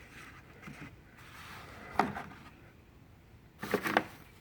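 Light handling clicks: one sharp click about two seconds in and a quick run of clicks and knocks near the end, from the tools and case being handled.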